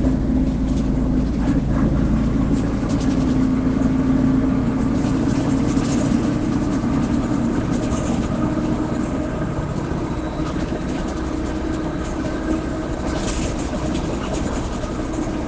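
Caio Apache Vip 4 city bus running, a steady engine drone with a held humming tone from the growling rear differential.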